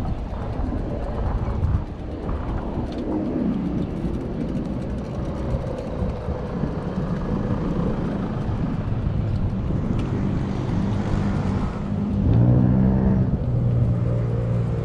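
Motor vehicle traffic: engines running close by, with a steady low rumble that swells louder for a moment near the end.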